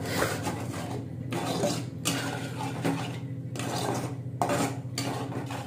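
A flat metal spatula scraping and stirring a thick masala paste in a metal kadai, in repeated uneven strokes.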